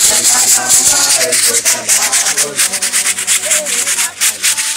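Choir singing together, with hand shakers rattling out a fast, steady beat.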